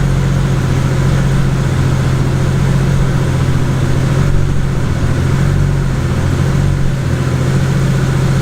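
Toyota Supra engine idling steadily, a constant low drone that does not change.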